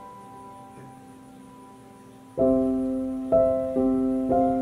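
Background piano music: a soft note fading away, then a louder chord struck about halfway through, followed by more chords at a slow, gentle pace.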